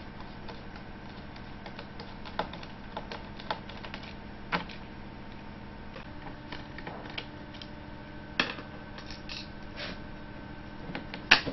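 Scattered light clicks and taps of a screwdriver and fingers working the metal display-hinge screws of an Apple MacBook Pro 17-inch, with the sharpest click near the end, over a faint steady room hum.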